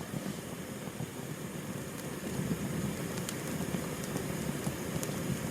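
Gas flame burning steadily just after ignition: an even, low rushing noise with a few faint ticks.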